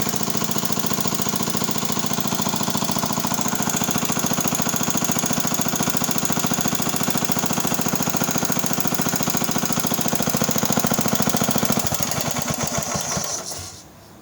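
Bolens Estate Keeper tractor's Wisconsin air-cooled engine running steadily and smoothly, then shut off about twelve seconds in, its firing slowing and coasting to a stop within a couple of seconds. It is killed by pulling off the spark plug wire, as it has no working kill switch.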